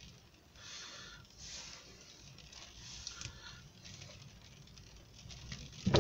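Faint rain pattering, coming in soft hissing swells.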